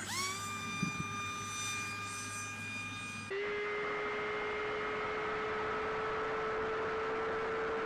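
Brushless motor and 5-inch propeller of a small FPV flying wing (T-Motor F60 Pro IV 2207 2550kV) whining in flight; right at the start the pitch drops sharply and climbs back. About three seconds in it turns to a steady motor whine heard from the plane's onboard camera, over a hiss of rushing air.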